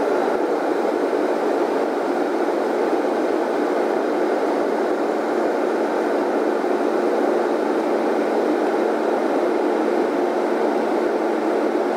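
Steady cabin noise of a jet airliner in cruise flight: an even rush of engine and airflow with a faint steady hum, its low rumble thinned by noise-suppression processing.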